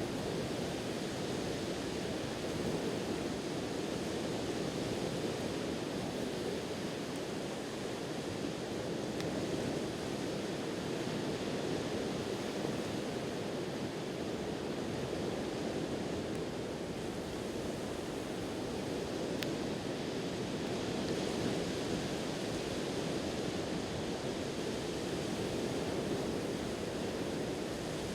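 Ocean waves washing onto the shore: a steady rushing surf that rises and falls in slow, gentle swells. A single faint click about two-thirds of the way through, such as a pop from the fire.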